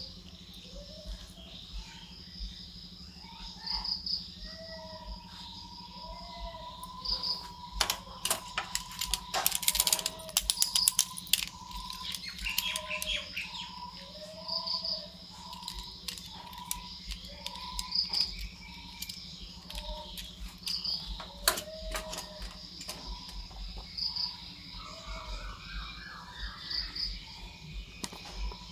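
Crickets chirping at uneven intervals along with other repeated short animal calls in the background. About eight seconds in, a dense burst of clicking and rattling from small plastic parts being handled lasts a few seconds.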